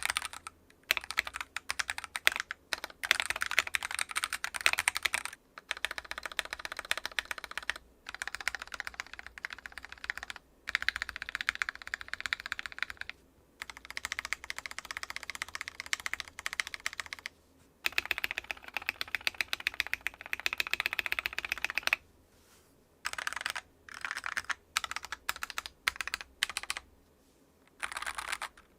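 Mechanical keyboard with Glorious Fox linear switches being typed on in fast runs of keystrokes, broken by short pauses and a longer one about 22 seconds in.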